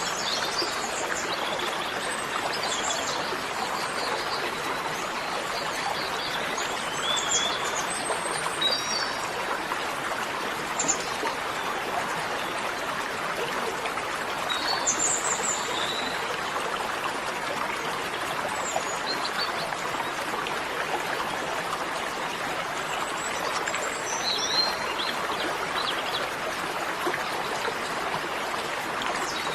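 A steady rushing noise runs throughout, with scattered short, high bird chirps over it.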